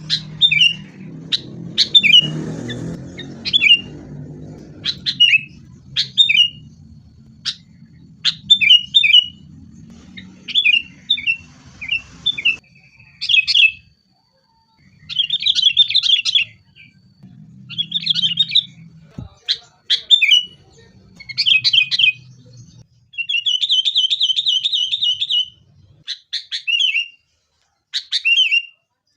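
Sooty-headed bulbuls calling: sharp, quickly repeated chirps broken by rapid chattering phrases, with one longer sustained trill about four-fifths of the way through.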